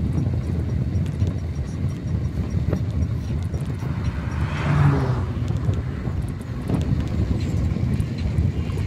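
Steady rush of wind and rolling noise from a bicycle riding along a highway shoulder. A car passes in the opposite lane a little before five seconds in, its tyre and engine noise swelling and fading.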